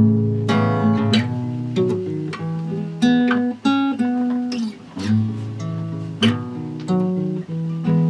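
Acoustic guitar played by hand, a slow run of strummed and picked chords, each ringing on into the next.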